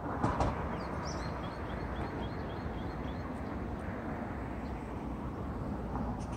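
Background noise of a futsal game: a steady noise with a few sharp knocks in the first half second. About a second in, a brief run of short, high, evenly spaced notes follows, about four a second.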